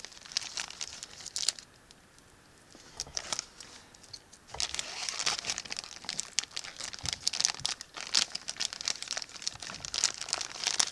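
Plastic toy packaging crinkling and rustling as it is handled and pulled open, with a quiet gap of about two seconds near the start.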